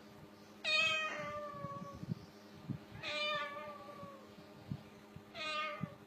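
White cockatoo mimicking a cat, giving three meows about two and a half seconds apart, each sliding down in pitch.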